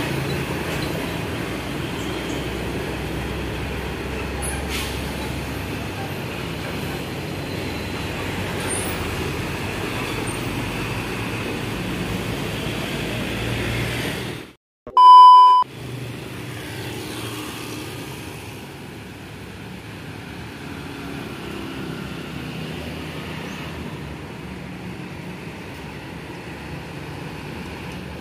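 Road traffic on a busy highway: trucks and motorcycles passing with a steady rumble of engines and tyres, louder in the first half. About halfway through, the sound drops out completely for a moment and a loud, short high beep sounds for about a second.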